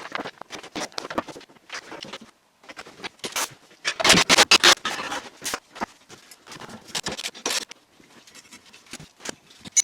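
Irregular scraping and rubbing with short knocks, densest about halfway through.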